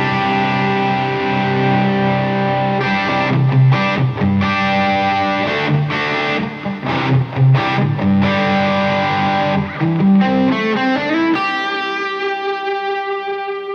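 Electric guitar played through a Bludotone 80's Classic amp on its overdrive sound: a phrase of notes and chords, a slide up about ten seconds in, then a held chord ringing out and slowly fading.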